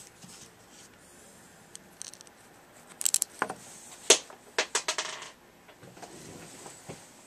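Metal carburetor parts from a two-stroke engine clicking and clinking as they are handled and set down: a cluster of sharp clicks about three seconds in, the loudest just after four seconds, then several quicker ones.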